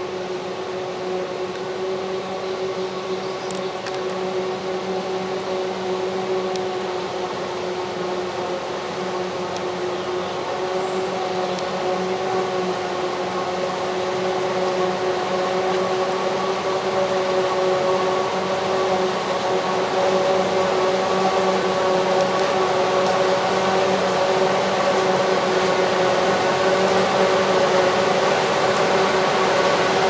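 Krone BiG X 530 self-propelled forage harvester chopping maize: a steady mechanical whine over a broad rushing noise. It grows gradually louder as the machine comes closer.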